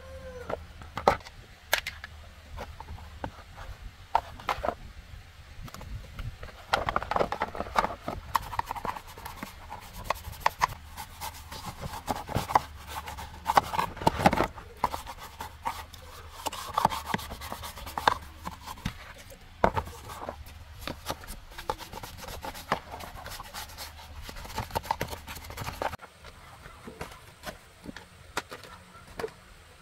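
Hand work with tools and small parts: irregular sharp clicks and light knocks mixed with rubbing and scraping, busiest through the middle and quieter over the last few seconds.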